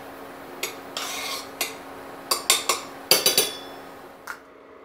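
Metal spoon stirring and scraping in a stainless steel saucepan, with a series of sharp clinks and a quick run of ringing taps about three seconds in, then one last tap. A faint steady hum lies underneath.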